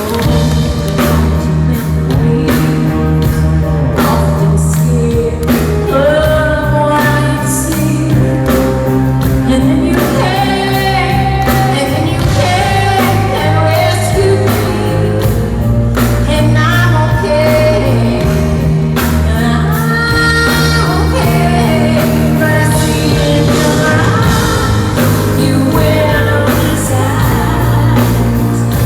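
Live pop-rock band with female lead vocals singing over drums and bass, heard loud and steady in a large hall.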